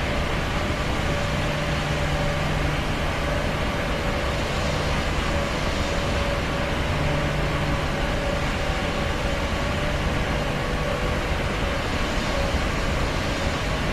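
Airplane running steadily: an even rushing noise with a low, constant hum underneath.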